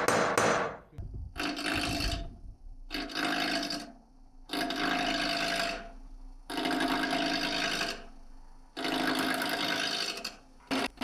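A hand tool rasping or sawing on wood in five long strokes, each about a second and a half, with short pauses between them.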